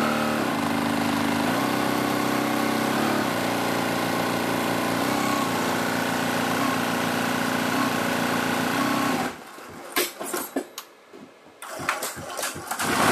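Multi-head computerized embroidery machine stitching, its motor hum stepping up and down in pitch every few seconds. About nine seconds in the hum cuts off, leaving a few sharp clicks and taps.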